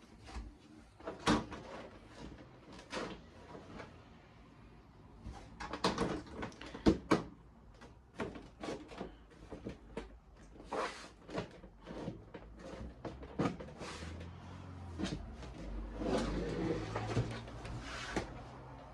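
Irregular clicks, knocks and light clatter of hardware being handled and fitted, in quick succession with short gaps.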